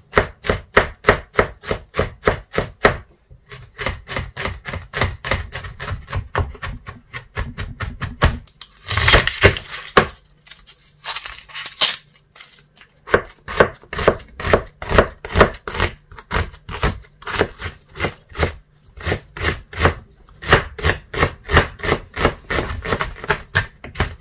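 Chef's knife chopping rapidly on a plastic cutting board, about five strokes a second, mincing garlic and later dicing onion. A louder, noisier stretch of about a second comes around nine seconds in, and the chopping stops briefly before resuming.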